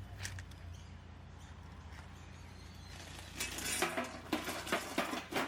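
Rocks and stones clinking and knocking as they are dropped into a galvanized metal container around a concrete block, in a quick, irregular run of clinks starting about three seconds in, over a low steady hum.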